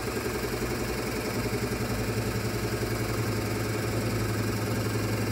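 Wen 8-inch benchtop drill press running at about 740 rpm with a 2 1/8-inch bit boring slowly into wood: a steady motor hum with a fast, even pulsing chatter.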